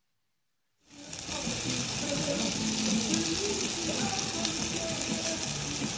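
Silence at first, then from about a second in, jerk chicken sizzling steadily on a grill grate.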